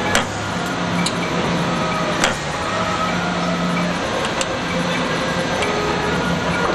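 CNC wire-forming machine running through its bending cycle: a steady motor hum whose tones step up and down as the tool slides move, with sharp metallic clicks, the loudest just after the start and about two seconds in.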